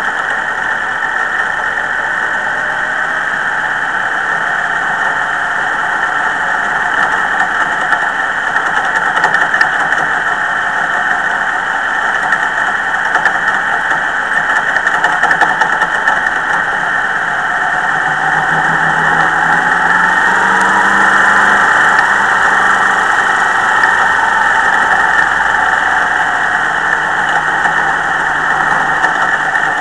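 Dirt modified race car's engine heard from its onboard camera, running steadily at moderate speed in traffic, its note rising and getting a little louder about two-thirds of the way through.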